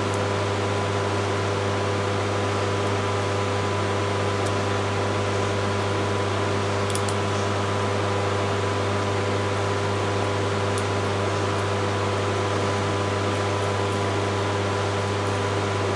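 Steady hum of an electric motor running: a low drone with a few fixed higher tones. A few faint light clicks sound over it.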